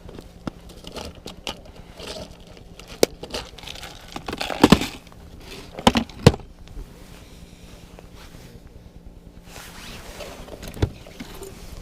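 Close handling noises: rustling and scraping broken by irregular sharp clicks and knocks, the loudest knocks about five and six seconds in.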